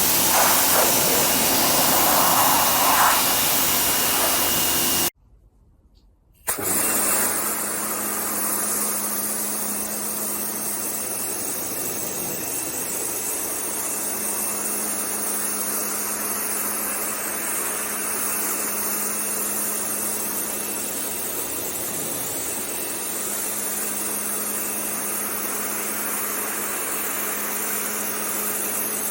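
Pressure washer spraying, a loud hiss of the water jet that cuts off about five seconds in. After a second's gap, a pressure washer's engine runs steadily with a low hum under the spray.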